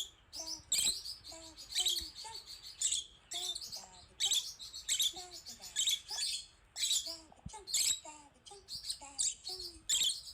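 Rosy-faced lovebird giving sharp, high-pitched chirping calls over and over, about one a second: the agitated calling of a bird alarmed at seeing herself on a screen.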